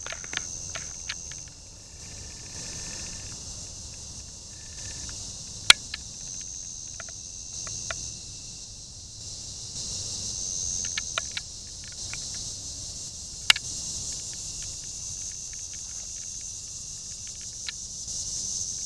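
Evening insect chorus: a continuous high trill that swells and fades in places, with scattered small ticks and two sharp clicks, about six and thirteen seconds in.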